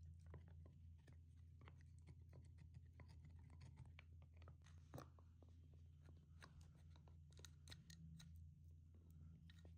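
Faint, irregular clicks and crackles over a steady low hum.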